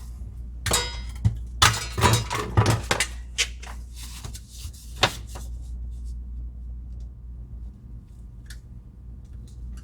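A series of light knocks, taps and scrapes from a polystyrene ceiling tile and crown molding pieces being handled and marked on a work surface, thickest in the first half, over a steady low hum.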